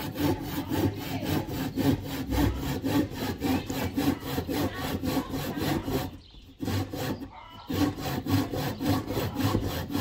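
Handsaw cutting a wooden board: quick, even back-and-forth strokes, about four a second, that pause briefly about six seconds in and start again just before eight seconds.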